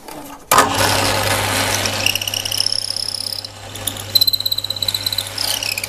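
An electric woodworking machine running and cutting into a laminated maple pen blank. It starts suddenly about half a second in, with a steady motor hum and a high whine from the cut that comes and goes.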